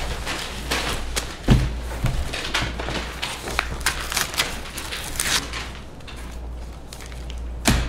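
Paper rustling and folders being handled on a table close to the microphone, with many small taps and page sounds. There is a louder thump about a second and a half in and another near the end.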